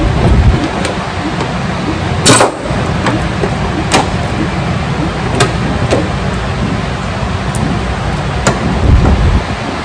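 Mechanic's tools working on bolts under a lifted car, against a steady low rumble: one short loud burst about two seconds in and scattered sharp metallic clicks.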